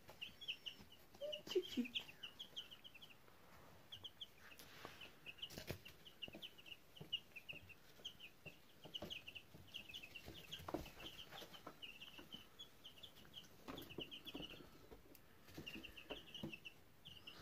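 White Leghorn chicks peeping: runs of short, high chirps, several a second, going on continuously, with a few soft knocks in between.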